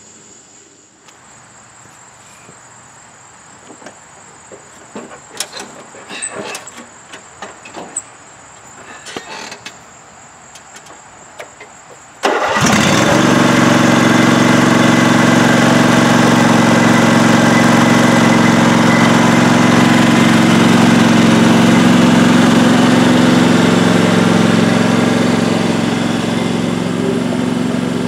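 Crickets chirping steadily, with a few scattered clicks and knocks. About twelve seconds in, a Scotts S2046 lawn tractor's engine starts abruptly and runs steadily, growing a little fainter near the end as the tractor drives off.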